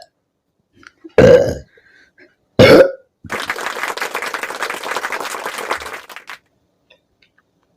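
A woman burping loudly twice, about a second and a half apart, from the gas of chugged carbonated Limca soda. A few seconds of dense crackling hiss follow.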